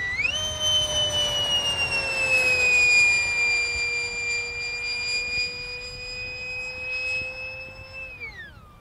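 Electric ducted fan of a radio-controlled Eurofighter model jet (Turbofan 4090 fan unit driven by a Neu 1527 1.5Y brushless motor on 12S) giving a high, steady whine in flight. The pitch climbs sharply just after the start, sags a little, holds, then drops sharply near the end.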